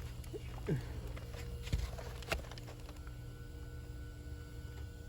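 A few soft knocks and scuffs from someone moving about in a crawl space, over a steady low hum; the knocks come in the first half and the second half is quieter.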